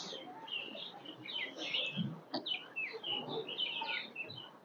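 Many small birds chirping, in quick short calls overlapping one another, with a soft low thud about two seconds in and another near the end.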